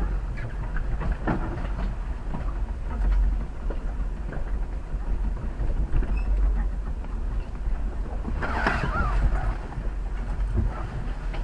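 Jeep Wrangler Unlimited crawling slowly over a rocky trail: a steady low engine rumble with scattered knocks and clatter as the tyres and suspension work over the rocks.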